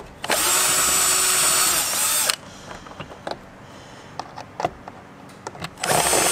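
Cordless drill with a Phillips bit backing out the screws of a car's air-filter box lid, running in two bursts of about two seconds each: one shortly after the start and another near the end. The motor's whine rises as each burst starts. Light clicks come between the bursts.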